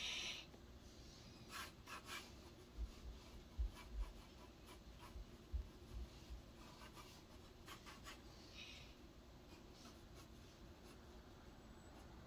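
Faint drawing sounds: short scratching strokes of a drawing tool across a surface, with scattered light taps and a few soft knocks.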